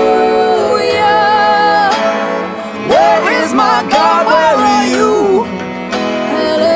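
A song with a singer holding long notes over guitar accompaniment. In the middle comes a wordless vocal run that slides up and down in pitch.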